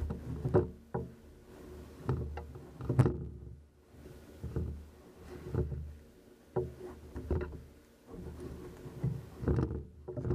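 Hard polycarbonate phone case with a stiff spring retaining clip being worked by hand with an iPhone: the phone is forced in and out of it. Irregular plastic clicks and knocks, some with a dull thud against the tabletop, come every half second to a second.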